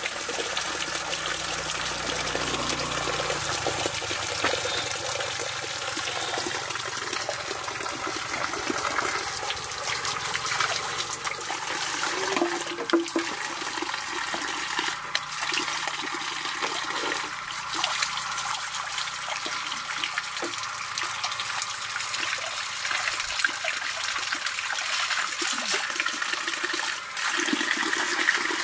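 Water from a small forest spring pouring off a rock ledge and splashing steadily into the stream below.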